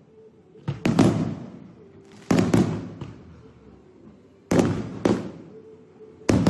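Aerial fireworks bursting: loud sharp bangs about every two seconds, several coming as quick doubles, each followed by a fading echoing rumble.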